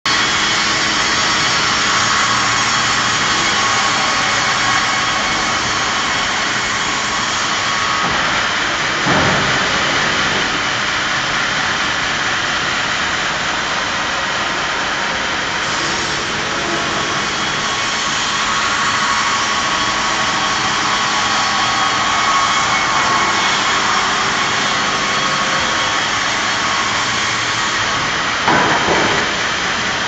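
Sawmill machinery running steadily with a dense mechanical noise. A brief louder sweep, falling then rising in pitch, comes about nine seconds in and again near the end.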